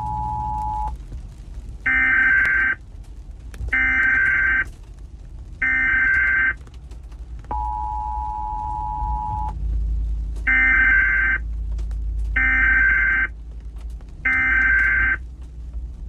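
Emergency Alert System signal tones. The steady two-tone attention signal ends about a second in, followed by three one-second bursts of the buzzy warbling data header. About two seconds of the two-tone attention signal follow, then three more data bursts, all over a steady low rumble.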